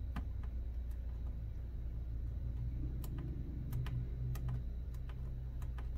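A few scattered light clicks of fingers picking at the plastic edge and old double-sided tape of a laptop's display lid, over a steady low hum.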